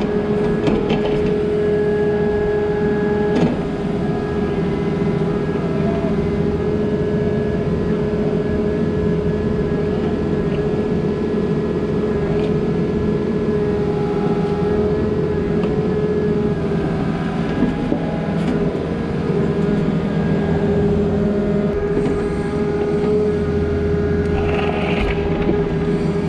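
Diesel engine of a compact earthmoving machine running steadily at work, with a steady hum over the engine noise and a single knock about three and a half seconds in.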